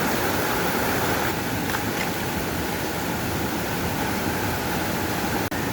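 Steady rushing of flowing water, such as a stream or small waterfall, that briefly cuts out near the end.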